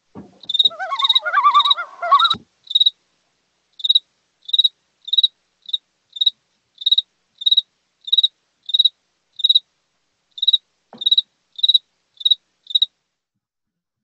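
A steady series of short, high-pitched chirps, about two a second, that stops about a second before the end. For the first two seconds a brief snatch of a different, lower warbling sound plays under the chirps and then cuts off.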